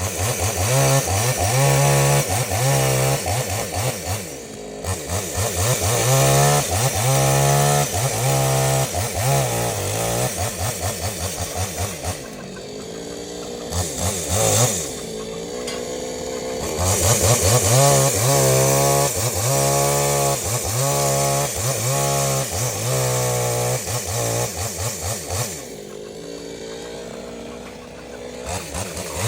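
Two-stroke chainsaw cutting dead mango wood, the engine revving up and falling back again and again as it works, easing off to a lower idle twice, about halfway through and near the end.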